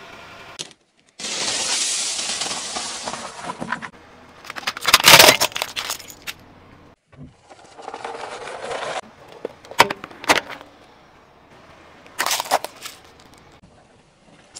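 Objects being crushed under a car tyre one after another: an inflatable rubber hopper toy, a plastic toy car and a toothpaste tube. Stretches of hiss alternate with loud crunching, sharp plastic cracks and snaps, each chunk starting and stopping abruptly.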